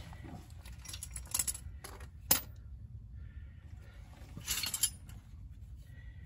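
Metal hand tools and bolts clinking and clicking during suspension reassembly: two short bursts of small metallic clicks, with one sharp clink about two seconds in, the loudest sound.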